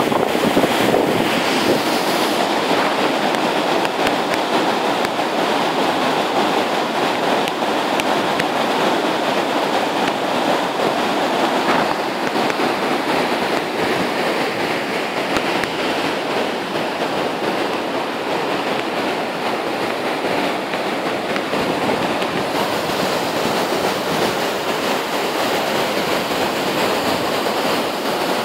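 Fast, shallow mountain river rushing over rocks and through rapids: a steady, unbroken rush of water.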